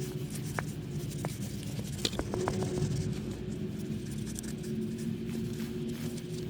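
Hand cleaning of a car blower fan motor's parts: rubbing and scraping sounds with a few light clicks in the first half, over a steady low hum.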